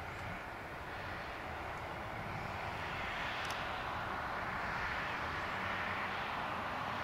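Tractor with a McConnel hedge-cutter arm running: a steady mechanical drone that slowly grows louder.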